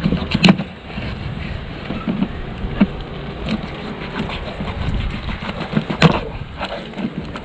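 Knife chopping a whole fish into steaks on a wooden board: a few sharp knocks as the blade goes through the fish onto the wood, the loudest about half a second in and about six seconds in, over a steady low background rumble.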